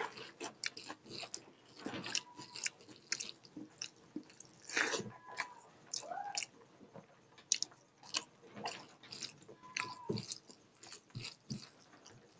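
Close-up chewing and wet mouth smacks of eating rice and egg curry by hand, in irregular quick clicks, with fingers squishing through rice on a steel plate.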